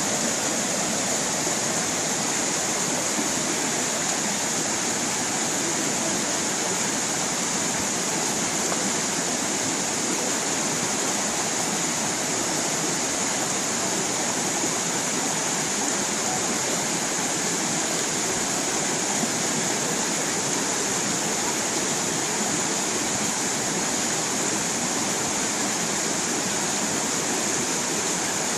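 Small stream splashing and rushing over rocks in a steady, unbroken hiss, brightest in its high splashing tones.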